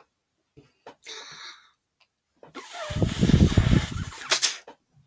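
Breath blown through a blow pen, a felt-tip marker that sprays ink when blown: a short puff about a second in, then a longer, louder blow lasting about two seconds, with a click near its end.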